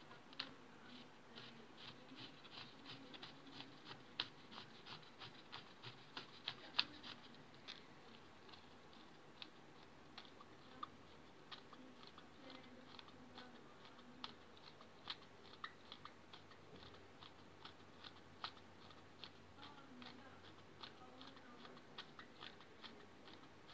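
3D-printed plastic helical Crayford focuser turned and worked by hand: irregular small clicks and crackles from the plastic parts and bearings. They come thick and fast for the first several seconds, then more sparsely.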